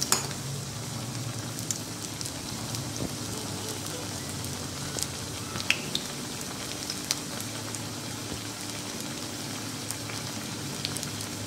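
Pigeon pea (toor dana) patties deep-frying in hot oil in a kadai: a steady sizzle with scattered sharp pops and crackles.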